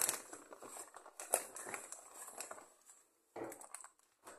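Plastic and paper food packaging rustling and crinkling as it is handled, with short crackles and light clicks, dying down after about three seconds with a brief rustle near the end.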